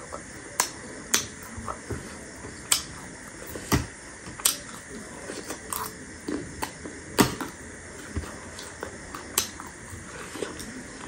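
Close-miked eating sounds: a metal spoon clinking and scraping in a ceramic bowl of chatpate, along with mouth clicks. They come as scattered, irregular sharp clicks, the loudest about four and seven seconds in.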